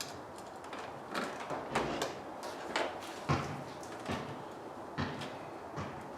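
Irregular clicks and knocks of parts being handled and fitted, roughly two a second, some with a short scraping tail, as the air intake is worked on in the engine bay.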